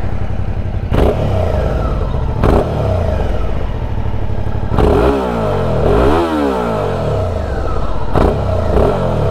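Suzuki V-Strom 650 XT's 645 cc V-twin engine running steadily, its pitch swinging up and down for a couple of seconds in the middle, with a few brief knocks.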